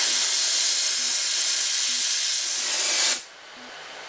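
Oxy-fuel gas torch flame hissing steadily on a Harris automatic torch handle, then cutting off abruptly about three seconds in. The automatic on/off control shuts off the main gas and leaves only the small pilot flame burning.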